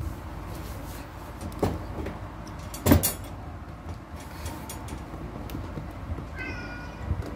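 A cat gives one short, high meow that falls slightly, about six and a half seconds in. Before it come a few light clicks and a sharp knock about three seconds in, the loudest sound.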